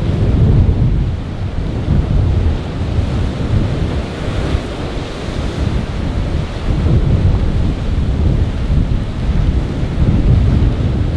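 Strong wind buffeting the microphone, a heavy low rumble that rises and falls with the gusts, over the wash of rough, whitecapped sea.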